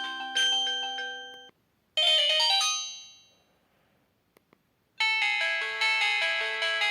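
Samsung GT-E1200M phone ringtones: one melody ends about one and a half seconds in, a short run of notes follows and fades out, and after a pause with two faint ticks a new melody begins about five seconds in.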